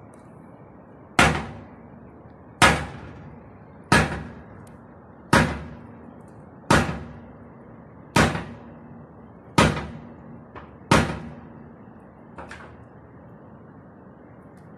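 A slow, even series of heavy knocks, eight in all about one and a half seconds apart, each dying away with a short ring, and a weaker ninth near the end, over a steady low background noise.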